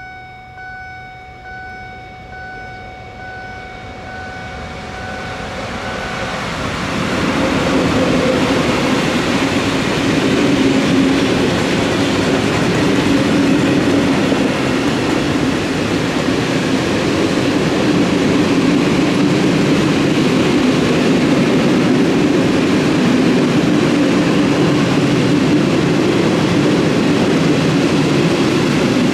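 A level crossing's warning bell rings in steady repeated tones, then stops about six seconds in as a freight train of tank wagons hauled by an electric locomotive arrives. The wagons then run past the crossing steadily, their wheels loud on the track.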